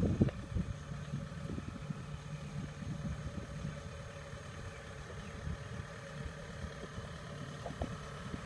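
Kubota M6040SU tractor's diesel engine running steadily as the tractor drives along, a low hum, with a louder rumble in the first half second.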